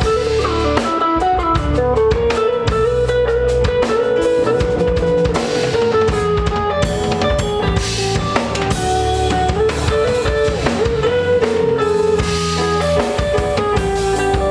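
A band playing: drum kit with kick drum and rimshots, bass and guitar over a steady beat, with a sustained, gliding melody line on top.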